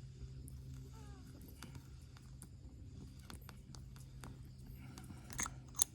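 Scattered small clicks and taps from small objects being handled, with two sharper clicks near the end, the second the loudest, over a faint steady low hum.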